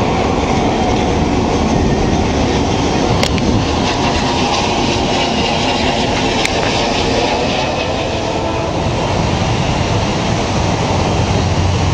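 Diesel-hauled freight train rolling past and moving off: steady locomotive engine and wheel-on-rail noise from the freight cars, with two sharp clicks about three and six seconds in.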